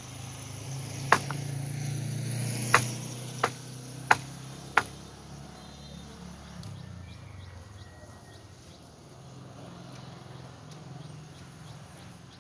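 Five sharp chopping strokes of a blade into bamboo and ground, spaced unevenly over the first five seconds, over a low hum that fades about halfway through.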